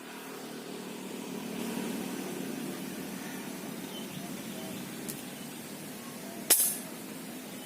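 A steady rushing noise, with a single sharp crack from an air rifle about six and a half seconds in.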